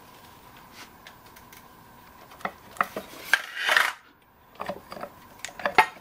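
Steel parts clinking and scraping as hands work the loosened hitch off a two-wheel tractor's transmission housing. It is quiet for about two seconds, then come scattered light metal clicks, a short scrape in the middle and a sharper clink near the end.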